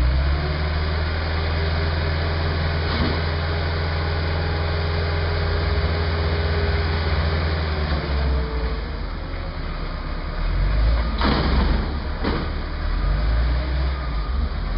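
A forklift's engine running steadily with a deep hum that shifts about eight seconds in. A few sharp knocks come through, one about three seconds in and two close together near the end.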